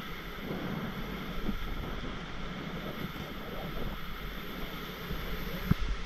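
Inflatable river raft being paddled forward, with paddle strokes and river water splashing against the raft, and wind buffeting the microphone. There is one sharp knock near the end.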